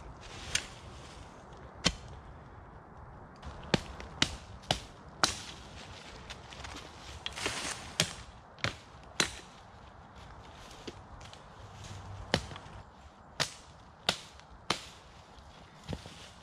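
A small axe chopping through branches: about a dozen sharp, single cracks at uneven intervals, in clusters with short pauses between.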